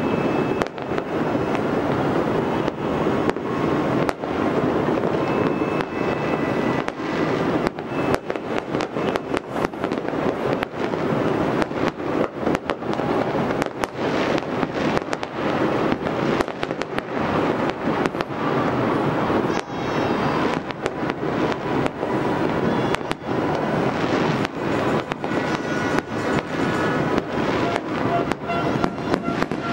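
Fireworks and firecrackers going off across a city, many at once: a dense, unbroken crackle of pops and bangs.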